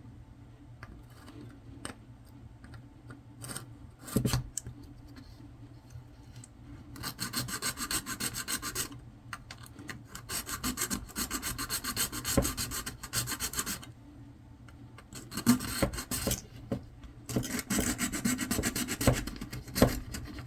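A small part being cut by hand with rapid back-and-forth sawing strokes, in four bursts with short pauses between, while a piece of a Raymarine e7 chart plotter's SD card reader is cut off. A single knock comes about four seconds in.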